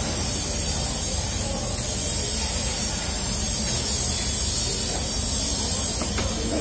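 A steady hiss of background noise, even and unbroken, with no distinct knife strokes standing out.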